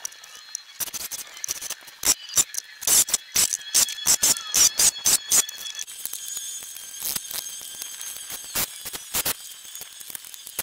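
Sharp clicks and knocks of tool work on deck boards, coming quickly for the first half and then more sparsely after about six seconds.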